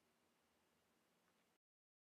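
Near silence: faint room tone that cuts to dead digital silence about one and a half seconds in.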